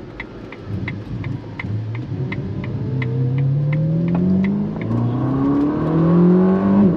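Ferrari SF90 Stradale's twin-turbo V8 heard from inside the cabin, accelerating hard through the gears. The engine note climbs, drops at an upshift about four seconds in, climbs again and drops at a second upshift at the end. A light, regular ticking about three times a second runs beneath it early on.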